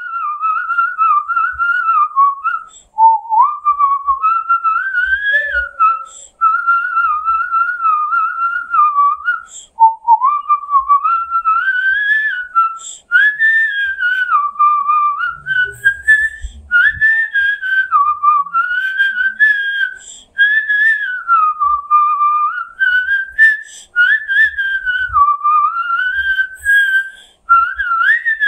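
A man whistling a melody through pursed lips: a single clear tone gliding up and down in phrases, with brief breaks for breath between them.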